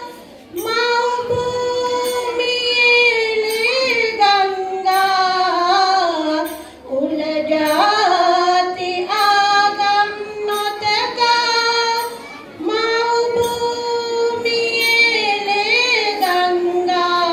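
A song sung in a high child's voice, in long held phrases with short breaks between lines about six and twelve seconds in.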